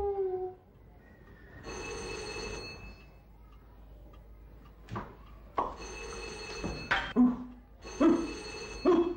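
Electric doorbell ringing three times, each ring about a second long, with short sharp sounds in between.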